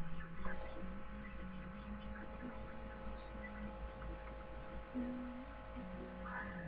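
Steady electrical mains hum with a low drone and faint held tones. Among them are faint low notes that shift pitch every second or so.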